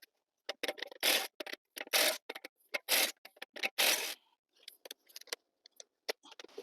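Impact wrench run at middle speed in about four short bursts, roughly a second apart, snugging the wheel's lug nuts, with small clicks between the bursts.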